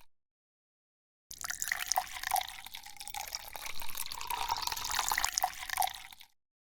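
Water running and splashing with small drips, starting about a second in after a silent cut and stopping abruptly near the end.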